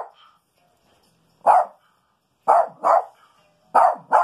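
A Maltese dog barking in short, sharp barks: one about a second and a half in, then two quick pairs of barks.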